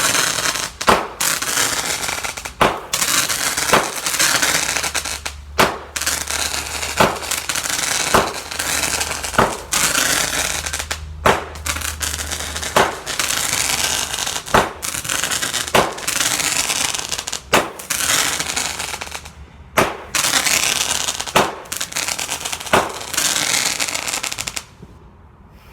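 Fireworks going off in a long run: sharp bangs about once a second over continuous crackling and hissing. The barrage stops about a second before the end.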